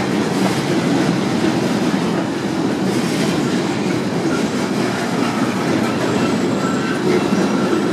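Freight train of covered hopper cars rolling past: a steady rumble and clatter of steel wheels on the rails. Faint high wheel squeal creeps in from a little past halfway.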